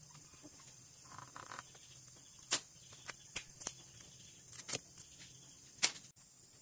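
Plastic car rain visor (window deflector) being pulled off the door frame: a series of about seven sharp clicks and cracks as it comes free, the loudest near the end.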